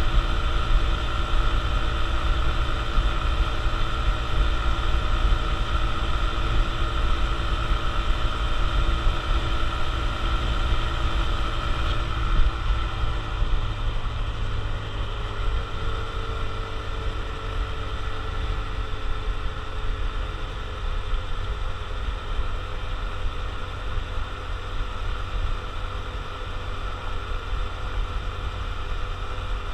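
Honda CT125 Trail Hunter Cub's small air-cooled single-cylinder four-stroke engine running steadily under way, with a low rumble beneath it. About twelve seconds in, the engine note drops slightly in pitch and runs a little quieter.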